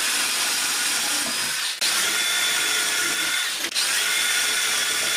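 Cordless drill running at speed as it bores screw holes through a wooden board, with a steady high whine. It drills in three runs of about two seconds each, with a brief stop between them, one for each of the three screw holes.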